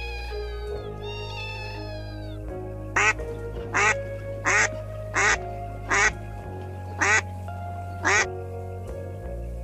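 A kitten mews once in the first couple of seconds. Then water birds give seven short, loud calls, roughly a second apart. Background music runs throughout.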